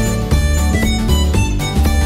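Background music with a steady beat: plucked notes over a strong, repeating bass line.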